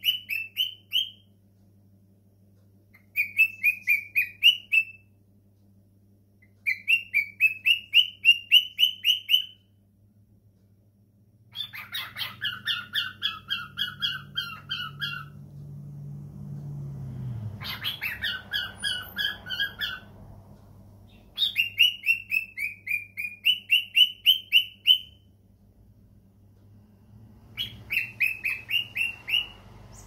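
Male cockatiel singing: about seven bouts of fast, repeated chirpy whistled notes, each a few seconds long with short pauses between.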